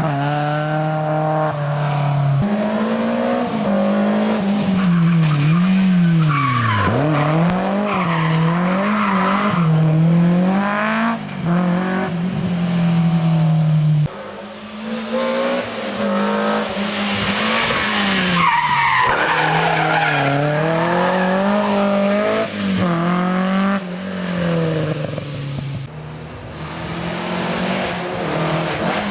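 Rally car engine driven hard along a special stage, its revs climbing and dropping again and again through gear changes and throttle lifts, with quick repeated blips partway through. Tyres squeal through the corners.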